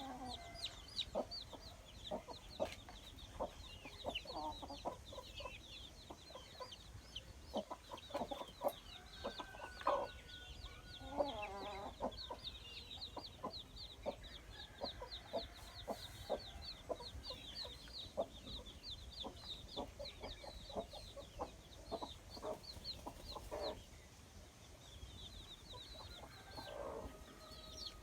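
Chickens clucking in short, scattered calls, with a few longer calls, over a steady run of quick, high cheeping.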